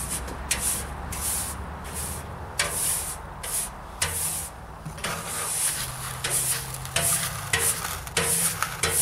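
Stiff hand brush sweeping flakes of burnt paint across a steel tool box lid into a plastic dustpan: quick scratchy brush strokes, about two a second.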